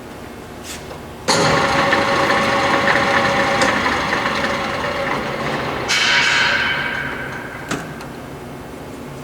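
LeBlond Regal servo-shift engine lathe running under power. The spindle drive starts suddenly about a second in and runs with a steady gear whine. A higher whine comes in about six seconds in and fades away, and there is a short click near the end.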